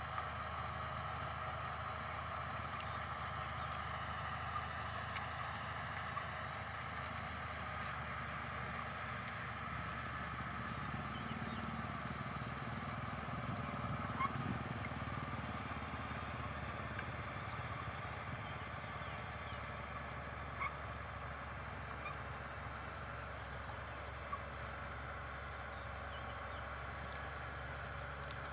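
Engine of heavy earthmoving machinery running steadily, with a few faint clicks over the top.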